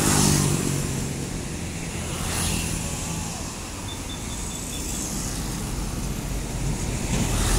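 Street traffic noise: vehicle engines running with a low steady hum in the first few seconds, and a car driving past close by around the middle.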